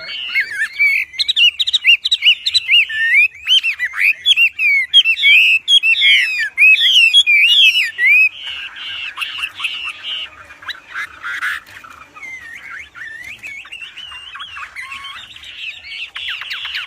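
Wambi songbird singing a loud, fast song of sliding whistled notes and chatter, loudest for the first eight seconds and softer after that.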